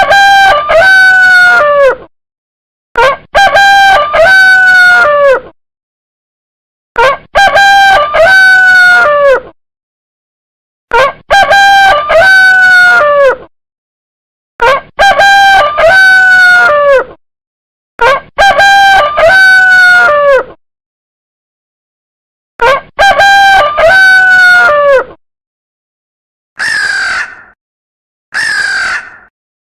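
A rooster crowing, the same crow repeated seven times about every four seconds with silence between, each about two seconds long. Near the end come three shorter, harsher calls.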